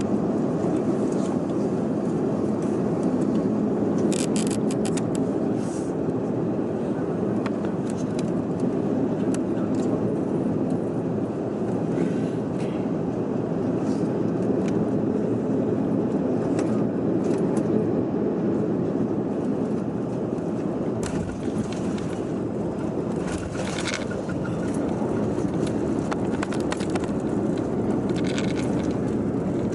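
Steady airliner cabin rumble from the engines and airflow, with scattered brief rattles and clicks from cabin fittings.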